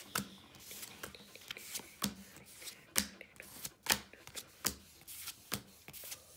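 Pokémon trading cards being flipped through by hand one at a time, each card slid from the back of the stack to the front with a sharp papery snap. The snaps come irregularly, about two a second.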